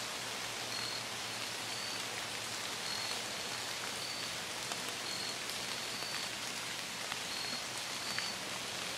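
Steady rain falling on the forest leaves, with scattered drop ticks. A faint, short high note repeats about once a second throughout.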